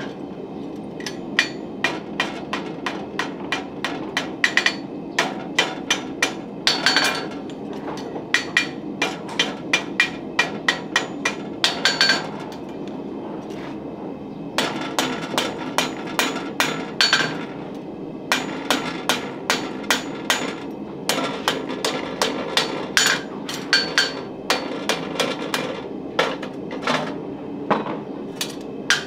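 Farrier's hammer striking in runs of quick blows, about three a second, each with a short ring, broken by a few brief pauses.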